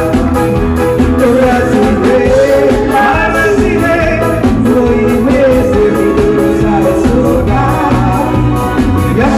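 A man singing a song into a microphone over a live band with drums and a steady beat, amplified through a PA system.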